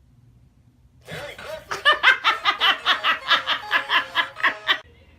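A person laughing hard, a quick run of loud "ha" bursts about five a second, starting about a second in and cut off abruptly near the end.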